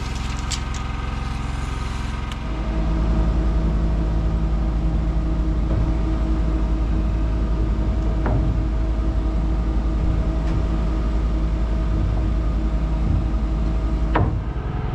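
Engine of a work lift running steadily, then speeding up about two and a half seconds in and holding at a higher, louder speed as the platform moves. A few sharp clicks near the start and one sharp knock near the end.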